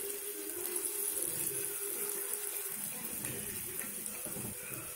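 Onions and tomatoes sizzling steadily in hot oil in an aluminium pot as pieces of marinated chicken are added.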